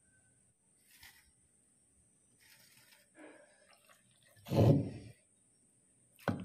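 Wooden pestle working roasted green eggplants in a clay mortar: a few light knocks and scrapes, then a heavy dull thud about four and a half seconds in, and another sharp knock near the end.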